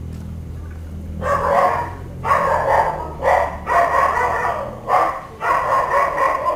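A dog barking, a string of about seven loud barks starting about a second in, over a steady low hum.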